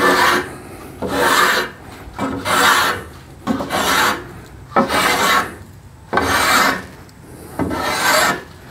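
A 6-inch Stanley block plane cutting shavings off a wooden paddle shaft: about seven strokes, a little over a second apart, each a short scraping swish of the blade through the wood.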